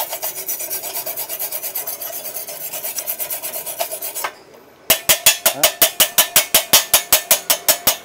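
Rapid back-and-forth scraping on the steel workpiece, as when a freshly welded flux-core bead is scrubbed to clear its slag. Quick, lighter strokes for about four seconds, a brief pause, then harder, even strokes about six a second.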